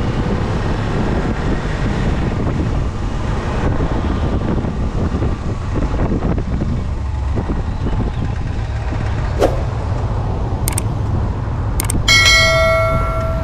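Kawasaki Versys-X 250's parallel-twin engine running while riding, heard through a helmet camera with steady road noise. Near the end, a few clicks and then a ringing, bell-like notification chime from a subscribe-button animation.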